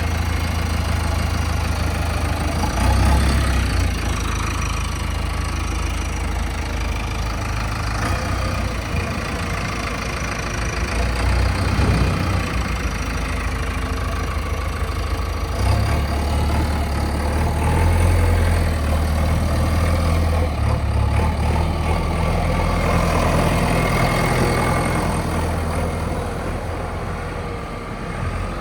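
Heavy diesel engine running, its low steady note shifting in pitch and level a few times.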